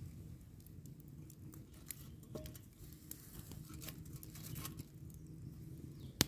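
Small stick campfire crackling with scattered pops over a low steady rumble while sticks are shifted in it by hand, with one sharp snap near the end.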